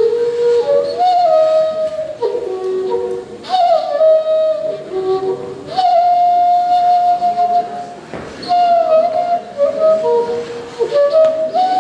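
Bansuri (Indian side-blown bamboo flute) played slowly and freely: long held notes with slides between them, each new phrase starting with a breathy attack, about every two to three seconds.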